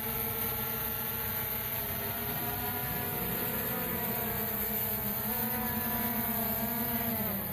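Quadcopter drone's propellers and motors whining steadily in the air, the pitch wavering a little, then dropping near the end.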